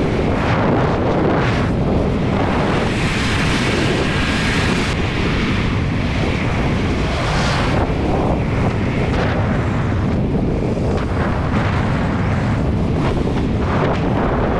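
Wind rushing over the microphone of a moving car, over a steady rumble of road and engine noise, swelling and easing now and then.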